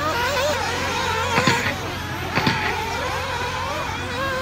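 Nitro RC buggy engines whining around the track, their pitch rising and falling as they rev and back off. Two brief knocks come about one and a half and two and a half seconds in.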